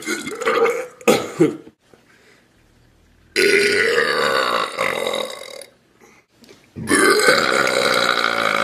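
A person belching loudly: two short burps at the start, then after a pause a long drawn-out belch of about two seconds, and another long belch beginning near the end.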